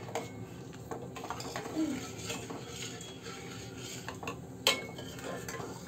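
Steel ladle stirring rice and milk in a stainless steel pot, scraping and clinking against the metal, with one sharper knock of ladle on pot near the end.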